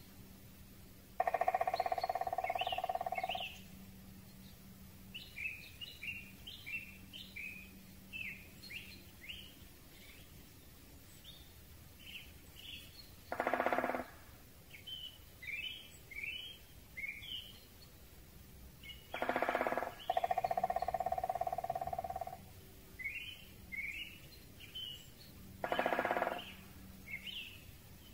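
Great spotted woodpecker drumming: short drum rolls on wood of about half a second each, repeated every several seconds, plus two longer bursts of about two seconds. Small songbirds chirp in the gaps throughout.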